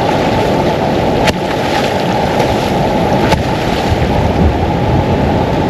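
Loud, steady wind buffeting the microphone over the noise of surf on the shore, with two faint clicks.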